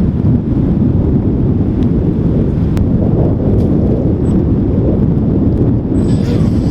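Loud, steady wind rumble buffeting the microphone, with no clear engine or motor tone.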